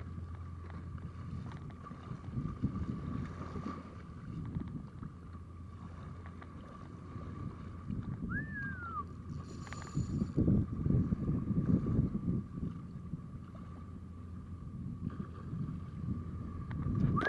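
Wind buffeting the microphone over water moving against a small boat, gustier and louder a few seconds past the middle, with a faint steady high hum throughout and one short rising-and-falling chirp about halfway through.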